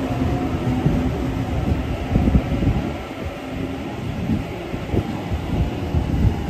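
Double-deck electric suburban train running past close by along the platform: a hum over the rumble of wheels on rails, with occasional knocks. The hum fades about halfway through.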